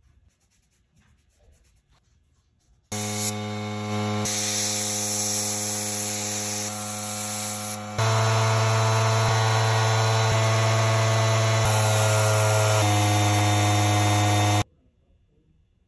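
Electric air compressor running: a steady motor hum with a high hiss of air, starting about three seconds in, getting louder about eight seconds in, and cutting off abruptly near the end.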